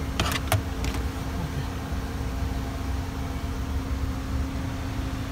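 Steady low hum of background machinery such as a fan or blower, with a faint constant tone, and a few short clicks and scrapes in the first second as plastic dashboard trim is handled.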